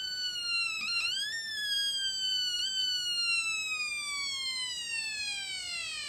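Funway 1 kit electronic siren, a two-transistor oscillator driving a small speaker, sounding a wailing tone: the pitch jumps up about a second in, then slides slowly and steadily down and dies away at the end.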